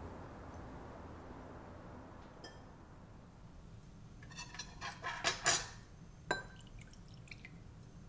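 Background music fading out, then a quick run of light, ringing clinks of glassware about four to five and a half seconds in, and one more clink about a second later.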